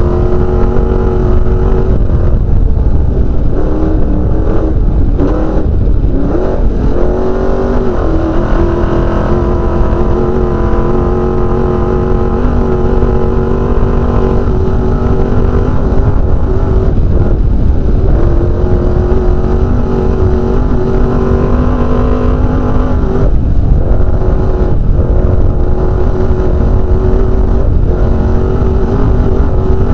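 Desert race car's engine running hard at speed, heard from inside the cockpit, with a steady high drone over a heavy low rumble. The engine pitch dips and climbs back a few times between about three and eight seconds in, then holds steady.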